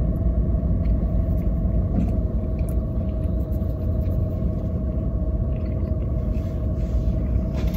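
Steady low rumble with a constant hum, heard inside a parked car's cabin while its engine idles.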